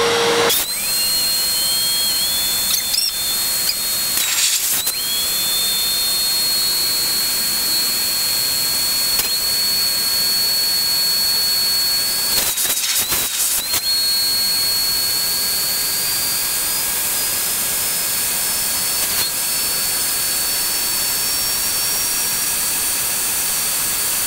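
Shop vacuum running in blow mode, pushing air through a hose adapter into an inflatable pontoon's air bladder: a loud, steady rush of air with a high motor whine that slowly rises in pitch. The airflow falters briefly twice, about four seconds in and again around twelve to thirteen seconds.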